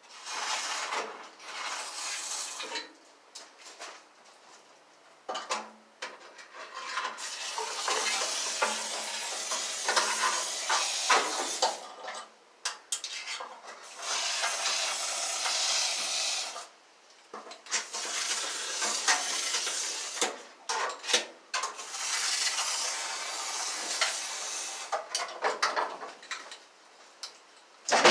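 Scratchy scraping on metal in irregular stretches of a few seconds each, with short pauses between.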